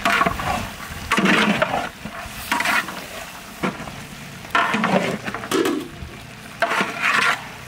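A long-handled metal spatula stirring and scraping a thick batch of cooked Bengal gram (chola) in a large metal pot, in repeated strokes roughly once a second with the odd sharp click of metal on metal.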